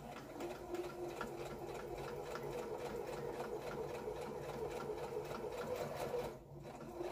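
Domestic electric sewing machine running steadily, stitching a seam through fabric, then stopping about six seconds in.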